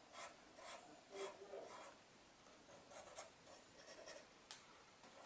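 Red marker pen scratching on a cardboard egg box in a series of short, faint strokes as the ink is coloured on.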